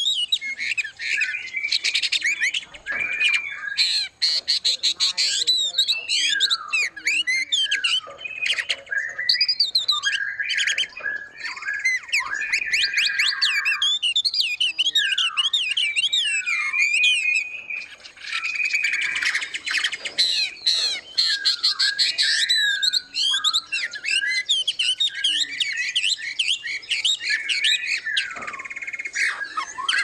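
Many caged songbirds in an aviary calling and singing at once: a dense, continuous chorus of overlapping chirps, trills and whistles, with a brief lull about two-thirds of the way through.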